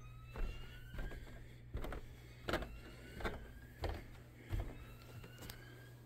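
Faint alarm tone sweeping upward in pitch, repeating about every two and a half seconds: the carbon monoxide alarm set off by the detector test. Footsteps on carpeted stairs thud over it, the loudest sounds, with a steady low hum underneath.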